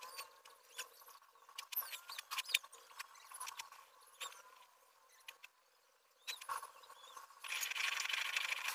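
Graphite pencil scratching across paper in short strokes with sharp ticks, a brief lull about five and a half seconds in, then steady rapid scribbling near the end as the pencil goes round in small circles.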